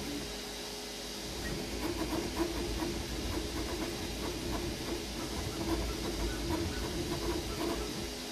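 Creality Ender-3 V3 KE 3D printer running a print: its stepper motors hum in shifting tones over the steady hiss of its cooling fans, the motor sounds getting busier from about two seconds in.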